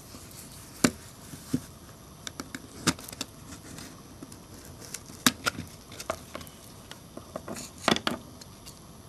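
An LG B1300 mobile phone's plastic housing being prised open with a flat metal blade: several sharp clicks of its latches letting go, the strongest about a second in, about five seconds in and near the end, with light scraping and handling between.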